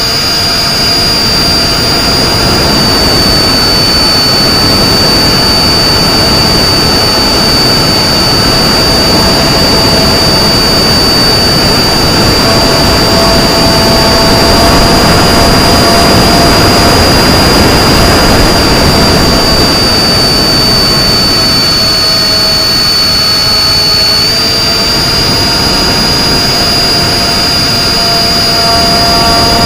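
Electric motor and propeller of an FPV flying wing running in flight: a steady high whine that drifts slightly up and down in pitch, over a constant rush of wind and airflow noise.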